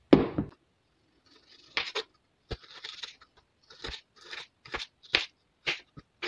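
A thump right at the start, then a kitchen knife slicing fresh red chillies on a bamboo cutting board: about a dozen short, uneven crunching cuts and taps of the blade on the wood.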